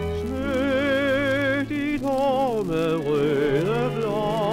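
A 1940s 78 rpm shellac record playing a slow song with orchestra: a lead melody with wide vibrato slides down and back up about halfway through, over held lower notes, with faint surface crackle.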